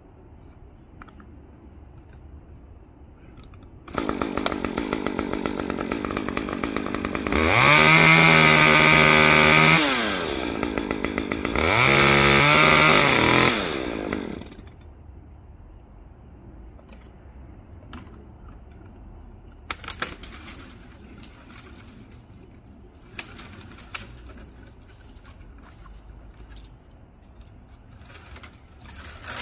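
Chainsaw starts idling about four seconds in, is revved to full throttle twice for a one-handed snap cut through a branch, drops back to idle between the two, and is shut off about fourteen seconds in. Scattered knocks and clicks follow as the saw is racked and the branch is handled.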